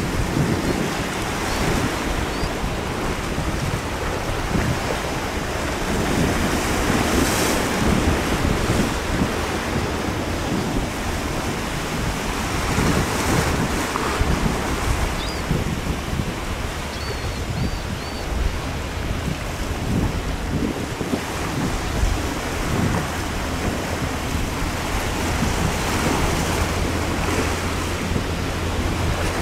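Choppy sea and breaking surf with wind buffeting the microphone in gusts. A steady low drone from the Coast Guard response boat's engines comes in under it in the second half.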